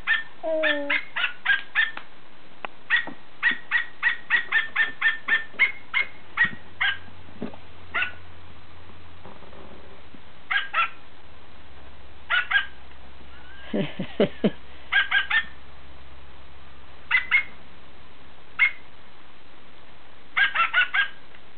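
Short high-pitched yips like a small dog's bark, made for a plush dog hand puppet, coming in quick runs of several a second with pauses between.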